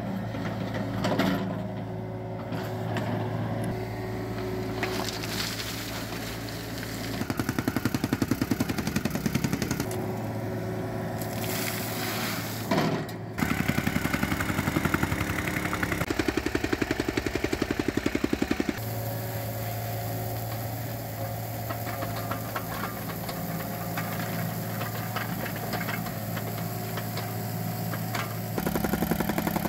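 A mini excavator's diesel engine running steadily, switching abruptly to stretches of a vibratory rammer pounding rapidly as it compacts trench fill: about seven seconds in, about thirteen seconds in, and again near the end.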